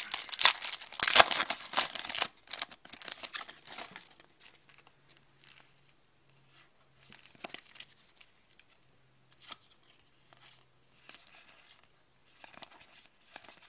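Shiny foil card-pack wrapper being torn open and crinkling loudly for about the first four seconds. After that, quieter scattered rustles and soft taps follow as the trading cards are handled and flipped through.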